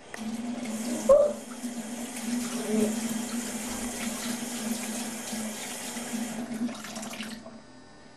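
Bathroom sink tap running water into the basin, with a steady low hum under the flow, turned off near the end. A sharp knock about a second in.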